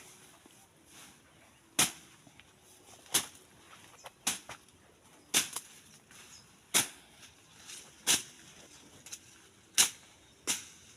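A hand slasher blade chopping into the stems and brush of a live hedge: a run of about eight sharp cutting strikes, roughly one every second to second and a half, with a quiet rustle of vegetation between them.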